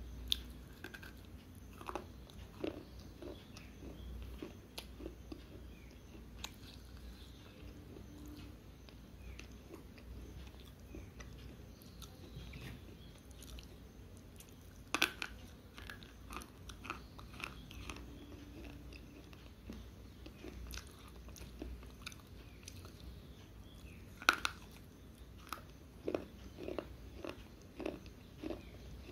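Dry Balak-brand slate pencils, not dipped in water, being bitten and chewed: sharp snapping bites and short crunches, the two loudest bites about halfway through and about three-quarters of the way in.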